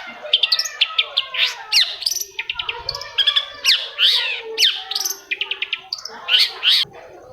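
Long-tailed shrike (cendet) singing a fast, varied song of quick chirps, rapid clicking trills and sharp downward-sliding notes, played as a lure song to set a silent shrike singing.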